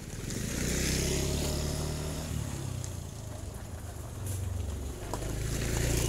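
Engine of a motor vehicle passing, a low rumble that swells about a second in and again near the end.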